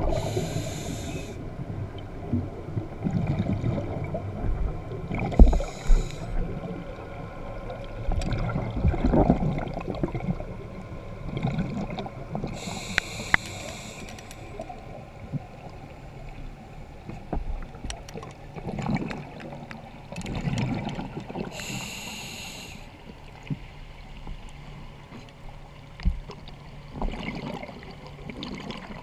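Underwater sound heard through a GoPro: a scuba diver's regulator exhaling, four hissing bursts of bubbles several seconds apart, over low rumbling and scattered knocks of water against the housing.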